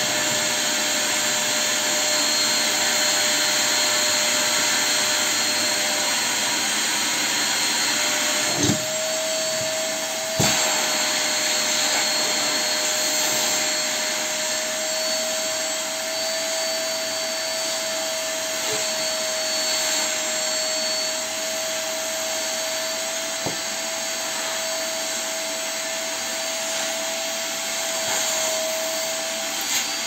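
Barrel-type vacuum cleaner running steadily with a constant whine, as jackets are fed into the suction intake on its side. A few short thumps break in, about nine, ten and a half, and twenty-three seconds in.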